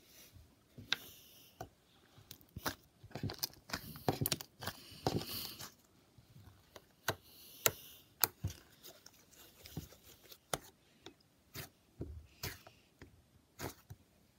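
Brown slime squeezed and pressed by fingers to force the air bubbles out, giving a crunchy crackle of irregular sharp pops and clicks. The crackling comes thickest a few seconds in and thins to scattered single pops later.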